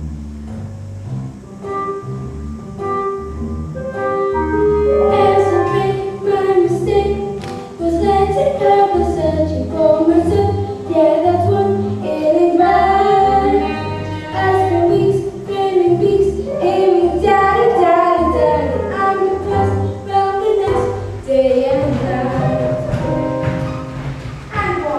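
Show song from a stage musical: voices singing over a band accompaniment with a steady bass line. The singing comes in about five seconds in, after a short instrumental lead-in.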